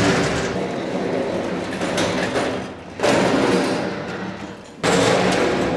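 Heavy steel workshop cabinets being pushed across a painted concrete floor, a grinding, scraping rumble. Fresh pushes start about 3 seconds in and again near 5 seconds, each fading as the cabinet settles into place.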